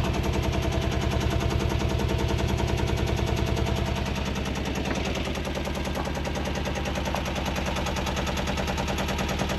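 Small Bukh inboard marine diesel running steadily at idle with a rapid, even knocking beat. It will not shut down because the wire to its stop solenoid has come off, and it keeps running on the fuel in the line after the fuel has been shut off.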